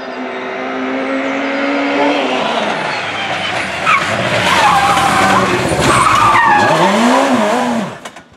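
Rally car driving hard at close range: a high engine note with loud tyre noise. From about halfway, the revs swoop down and up through gear changes, with some tyre squeal. The sound cuts in abruptly and falls away just before the end.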